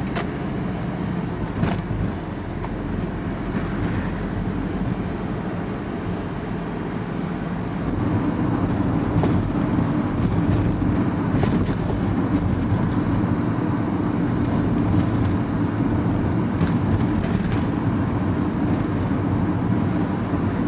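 Van engine and road noise heard from inside the cab while driving, growing louder about eight seconds in and holding there.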